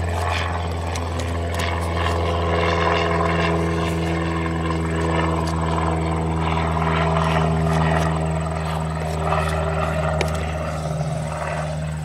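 An engine or motor running at a steady speed: a low, even drone that holds its pitch throughout.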